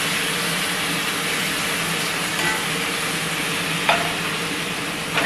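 Marinated mushrooms sizzling in hot oil in a pan while being stirred with a spatula, with two short knocks near the end.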